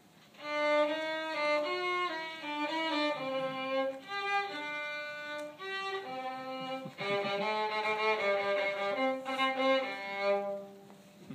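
Solo violin played with a bow, an unaccompanied melody of short, separate notes. It starts about half a second in and stops about a second before the end.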